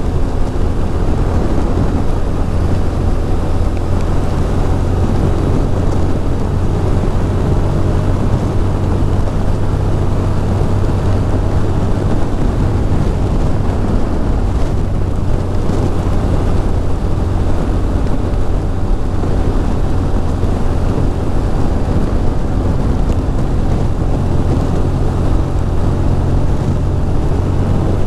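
2006 Ducati Monster 620's air-cooled V-twin engine running steadily at an even cruising speed, with a constant rush of wind noise over it.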